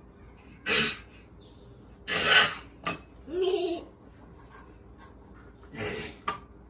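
Two young children giggling in a few short breathy bursts, one of them a brief pitched laugh about halfway through, with a couple of light clicks of plates or cutlery on the table.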